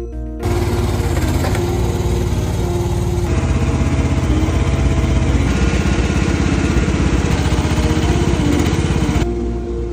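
Mini excavator's engine running steadily as its bucket digs a root ball out from between deck joists. It starts abruptly about half a second in and drops away near the end.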